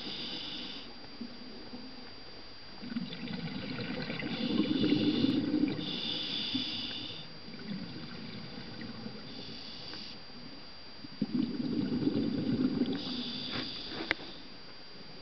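Scuba diver breathing underwater through a regulator: hissing inhalations alternate with louder bursts of exhaled bubbles, the bubbling swelling twice, a few seconds in and again past the middle.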